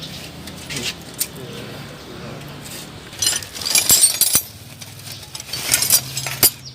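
Metal hand tools clinking and rattling against each other in two spells, about three seconds in and again near the end.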